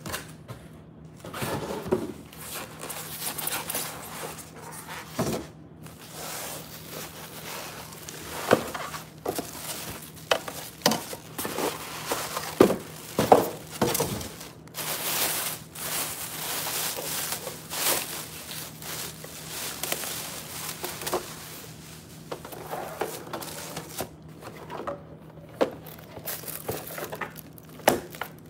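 Unboxing handling noise: plastic wrapping crinkling, the styrofoam packing insert and cardboard box rubbing and scraping, and irregular knocks and thuds as the waffle maker and its packaging are pulled out and set down.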